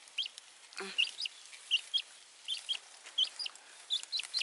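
Baby chick peeping: short, high peeps, about three a second, often in pairs.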